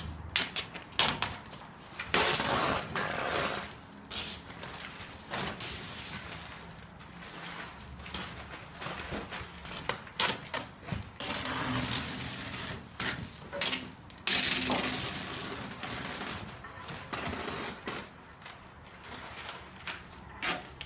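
Small fragments of shattered glass rattling and clinking as they are shaken around in a plastic tarp, with the tarp rustling. Long bursts of pouring, tinkling glass come about two seconds in, around ten seconds in and around fourteen seconds in, with scattered sharp clinks between them.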